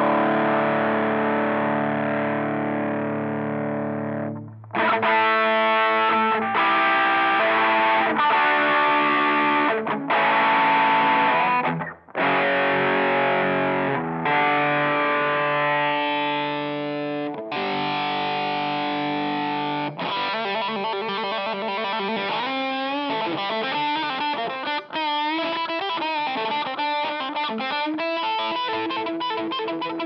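Electric guitar played through a Behringer UM100 Ultra Metal distortion pedal. A held chord rings and fades, then a series of distorted chords follows, each held a second or two. About two-thirds of the way in it turns to single-note lead lines with string bends and vibrato.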